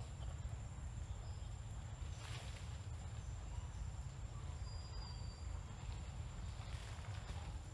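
Outdoor ambience: a steady low rumble of wind and handling noise on the microphone, under a thin, steady high-pitched insect drone, with faint rustles of leaves and branches about two seconds in and again near the end.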